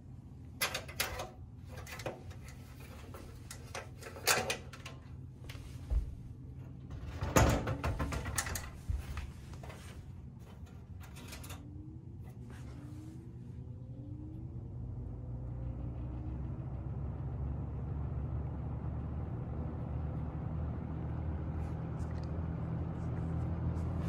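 1970 Coronado (Lasko) 3713 20-inch box fan: a steady motor hum with a series of clicks and knocks in the first half, then the blades spin up and the rush of air grows steadily louder through the second half, with a few short rising whines as it gathers speed.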